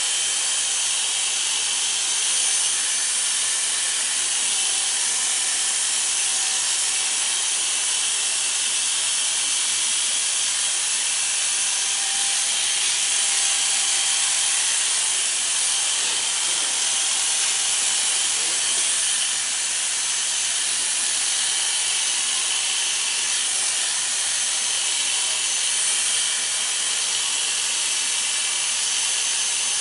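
Corded electric hair clippers running steadily, cutting short hair on the back of the head over a comb.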